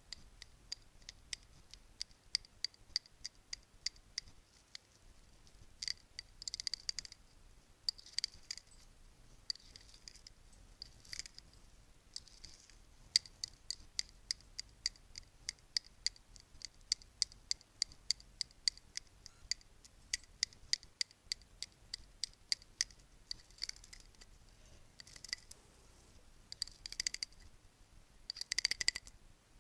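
Bracelets tapped and clinked together: quick light clicks with a bright metallic ring, several a second, broken now and then by short jangling shakes, the loudest near the end.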